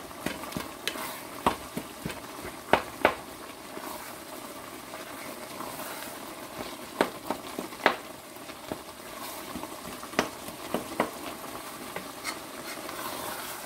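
Wooden spoon stirring chopped vegetables in a hot pot, with irregular scrapes and knocks against the pot over a steady sizzle.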